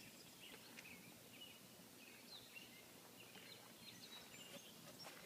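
Near silence: outdoor quiet with faint, scattered short bird chirps.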